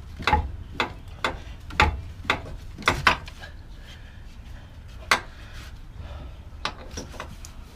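Sharp knocks from hand tools working on a car's front suspension and CV axle: about two a second for the first three seconds, one loud knock a couple of seconds later, and two more near the end.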